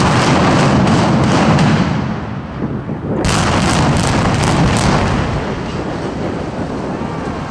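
Explosive demolition charges firing in rapid sequence to implode a 17-story reinforced concrete tower. A burst of sharp reports starts at once and a second run begins about three seconds in, over a continuous heavy rumble.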